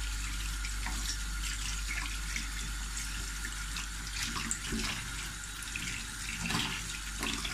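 Tap water running steadily into a stainless steel sink as radishes are rubbed clean under the stream, with small irregular splashes.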